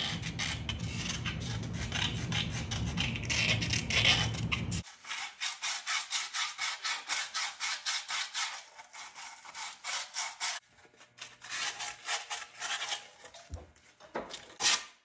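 Fine sandpaper rubbed by hand over the cast-iron liner seats inside the bores of a Continental Z134 engine block, lightly sanding them so nothing can tear the new wet liners' O-rings. It is a steady rasping at first. After about five seconds it becomes back-and-forth strokes, about two or three a second, that grow fainter towards the end.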